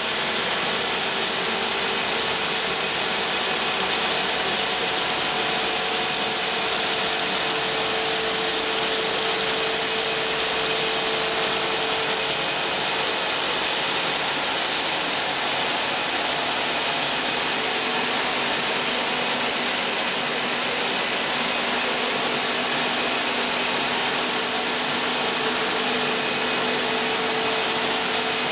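JF YDL-3000E capsule printing machine running, a steady mechanical whirr with a faint held hum through it.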